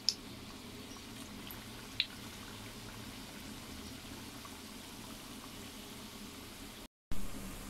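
Dough pieces deep-frying in hot oil in a wok, giving a steady bubbling sizzle, with a light click about two seconds in. The sound cuts out for a moment near the end.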